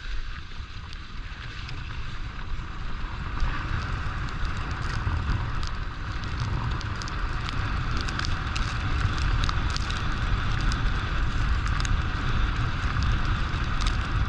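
Wind rushing over the microphone during a fast run on snow: a steady low rumble with a band of hiss that grows stronger a few seconds in, and scattered faint ticks.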